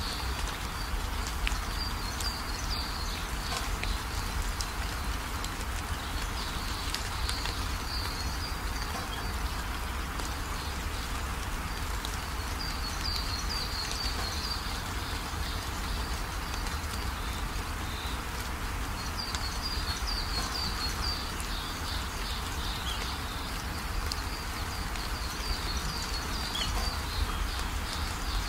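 Steady background hiss and low hum, with bursts of high trilling insect chirps that come and go every few seconds.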